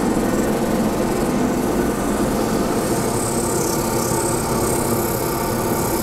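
Wood lathe running steadily while sandpaper is held against the spinning sapele bowl, with a steady hiss of sanding over the machine noise.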